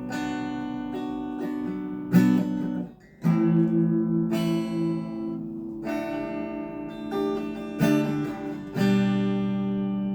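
Legacy Les Paul LP 300 electric guitar played with a clean tone on the middle pickup setting: about seven strummed chords, each left to ring, with a short break about three seconds in.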